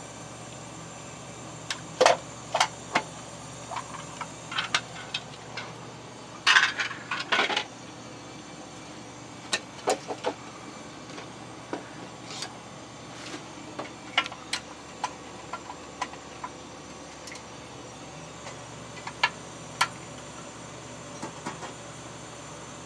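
Scattered clicks and knocks of hand work on a residential gas meter's index head as it is swapped, with a short run of clatter about six to seven seconds in, over a steady low hum.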